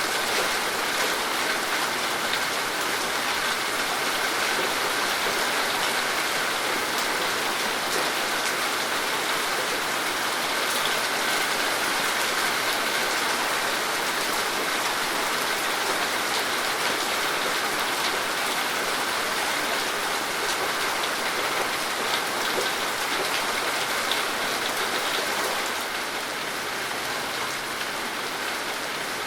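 Steady rain falling on a surface, an even patter of many drops that drops slightly in level near the end.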